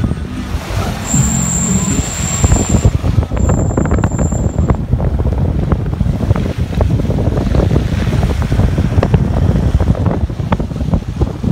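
Wind buffeting a phone microphone held out of the window of a moving Mitsubishi L200 pickup, over the rumble of the truck on the move, with frequent sharp clicks and knocks. A high steady whistle sounds twice, about a second in and again around four seconds.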